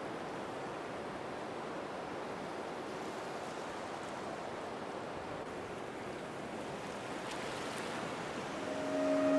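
Steady wash of ocean surf. Near the end a steady low tone with a higher tone and overtones above it fades in.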